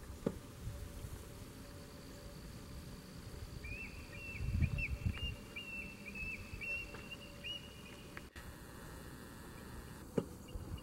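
Bald eagle calling: a quick run of high, thin piping notes lasting about four seconds, beginning a few seconds in. A low wind rumble on the microphone lies underneath, strongest around the middle.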